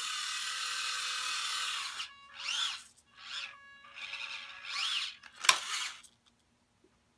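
Small electric motor and gear drive of an RC scale truck whirring steadily, then revved in about three short bursts that rise and fall in pitch. A single sharp knock follows near the end.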